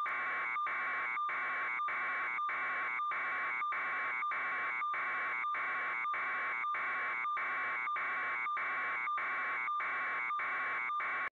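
Electronic buzzer tone pulsing evenly, just under two harsh buzzes a second, then cutting off abruptly.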